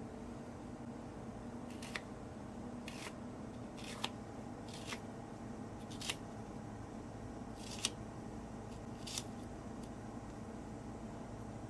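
Knife slicing an onion on a plastic cutting board: seven short, crisp cuts at uneven intervals of about a second, over a steady background hum.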